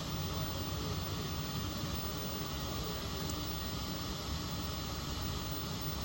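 Steady outdoor background noise: a low, wavering rumble with a hiss over it.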